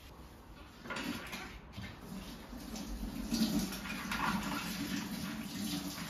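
Kitchen tap running into a stainless steel sink, starting about a second in, with gloved hands rinsing something under the stream.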